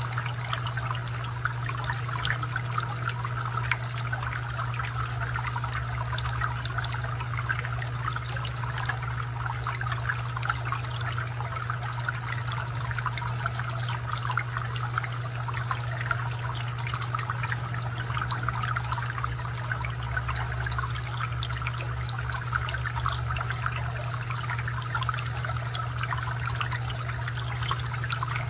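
Garden fountain water trickling and splashing steadily over a constant low hum.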